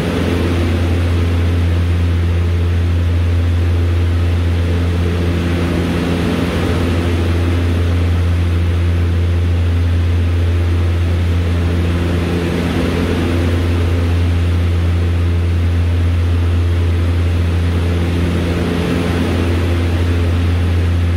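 Cabin noise of a DHC-6 Twin Otter in flight: its Pratt & Whitney PT6A turboprop and propeller make a loud, steady drone, a deep hum with a few higher tones that swell and fade every few seconds, over a hiss of airflow.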